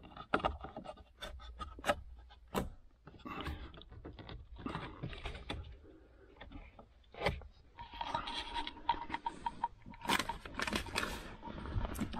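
Plastic dashboard trim and a brake controller module being pushed and worked into place by hand: a run of sharp plastic clicks and taps with scraping and rustling between them.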